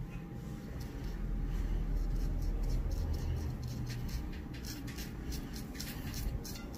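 Stiff, cut-down paintbrush scrubbing back and forth over a wet, painted plastic strip, a light rasp with each stroke, lifting the lacquer off water-reactivated chipping fluid. The strokes come quicker and sharper in the second half, over a low rumble.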